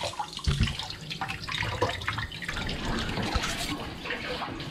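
Kitchen faucet running, its stream splashing through a mesh net of prickly pear fruit into the sink, with a low thump about half a second in.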